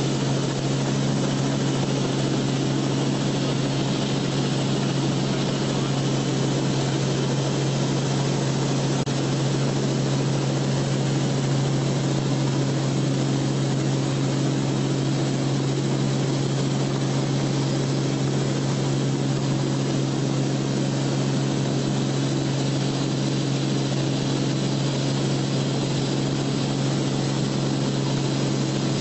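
Steady drone of a light aircraft in flight: a constant engine and propeller hum over a rushing of air, unchanging throughout.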